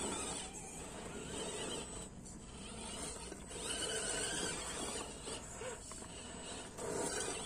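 Electric drive motors and gearboxes of 1/10-scale RC crawler trucks whining in short spurts as the trucks climb a rock slab.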